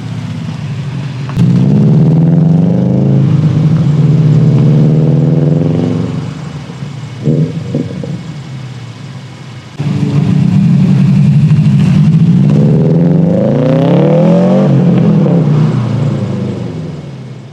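Subaru STI's EJ25 turbocharged flat-four running through a Noble titanium single-exit cat-back exhaust, opened up under throttle twice with a short blip between. The second pull rises and falls in pitch and fades out near the end.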